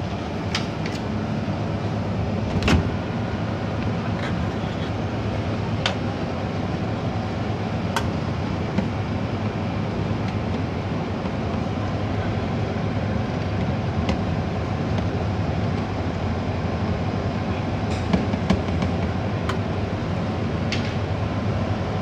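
Steady low mechanical hum of kitchen machinery, with a few sharp clicks and knocks as a ceramic dish is handled at the open microwave.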